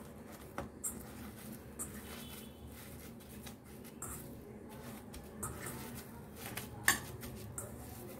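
Quiet squishing and tearing of water-soaked bread slices by hand in a stainless steel pot, broken by a few sharp clicks of something hard against the pot, the loudest about seven seconds in.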